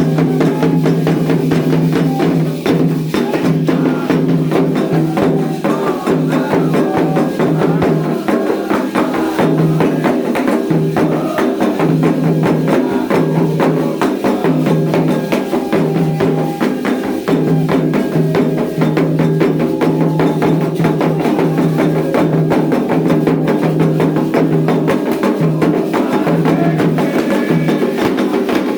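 Percussion-led music: drums with fast, dense wood-block-like strokes over a steady pitched line.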